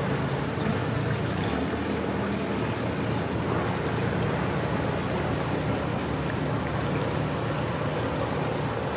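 Motor cruiser's inboard engine running steadily at low speed as it comes close, its low hum over a hiss of water and wind.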